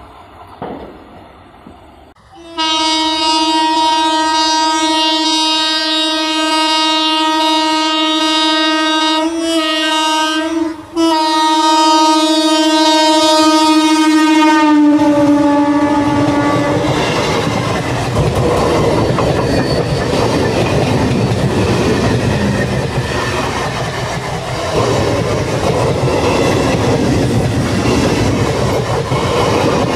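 Electric multiple unit (EMU) local train sounding one long horn blast of about twelve seconds, with two brief breaks, its pitch dropping as the train passes close. The coaches then rush past with wheels clattering over the rail joints.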